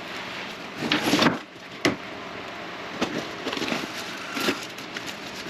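A cardboard shipping box being opened and handled, with scratchy tearing and rustling and a sharp knock about two seconds in.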